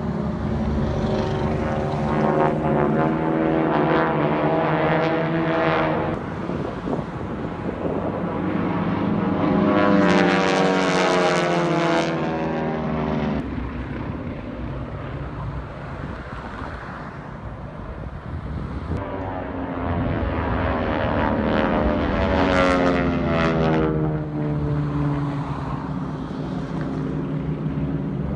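Formation of single-engine propeller aerobatic planes droning overhead, the pitch of their engines sweeping up and down as they pass. It grows loudest about ten seconds in and again a little after twenty seconds in.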